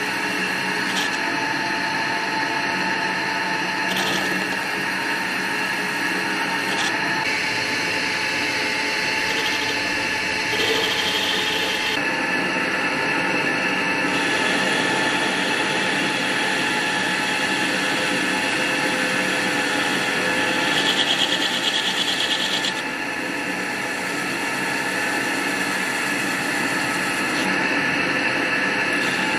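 Homemade metal lathe running under load, a carbide-insert turning tool facing a spinning metal ring in the chuck: a steady hum with several whining tones from the motor and drive under the rasp of the cut, which gets louder for a couple of seconds past the middle.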